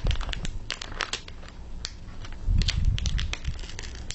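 Irregular small clicks and crackles of hand tools being handled: a flathead screwdriver prying open the eyelet of a tire plug insertion tool to load a rubbery tire plug. A low rumble joins from about halfway through.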